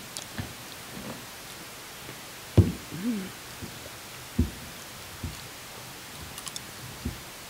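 Day-old popcorn, described as not as crunchy as when it was made, being handled and eaten close to microphones: several dull knocks, a brief hum about three seconds in, and a quick run of faint crisp clicks near the end.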